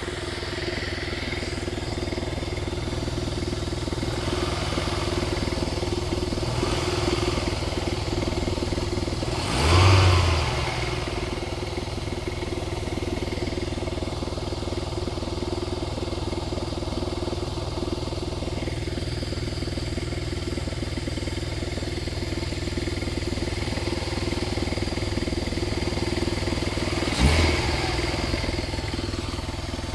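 Opel Vectra B's 2.0 16-valve four-cylinder petrol engine (X20XEV) running with its air filter removed, blipped briefly twice, about ten seconds in and again near the end. It carries a strange noise from inside the engine that the owner suspects could be con-rod or crankshaft bearings, camshafts or the oil pump, and that does not keep time with engine speed.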